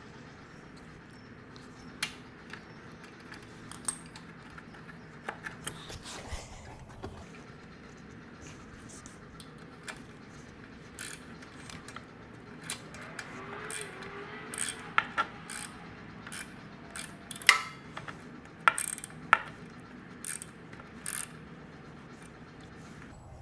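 Scattered metallic clicks, clinks and knocks of hand tools and small engine parts as a carburetor is refitted to a generator engine, sparse at first and coming more often in the second half.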